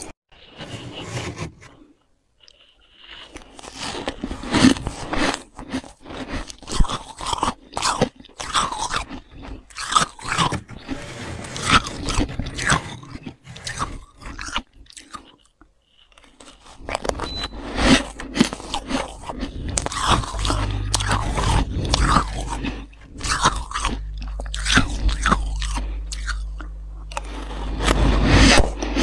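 Mouthfuls of freezer frost crunched and chewed, a long run of crisp, irregular crunches with a couple of short pauses. A low steady hum comes in about two-thirds of the way through.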